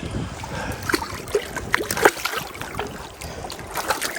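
River water flowing, with irregular close splashes and drips.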